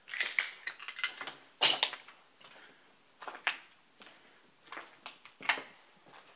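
Footsteps crunching and scraping over rubble and broken plaster in uneven steps, the loudest crunch just under two seconds in, with a short ringing clink about a second in.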